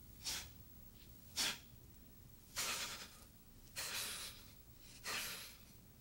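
Forceful breaths through the nose and mouth, taken in time with Tensegrity movements: five in all, two short sharp ones in the first second and a half, then three longer, hissing ones about a second and a quarter apart.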